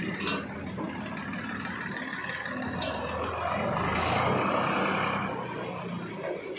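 Swaraj 735 FE tractor's three-cylinder diesel engine running, growing louder for a second or two near the middle as it pulls ahead, with a few sharp clicks.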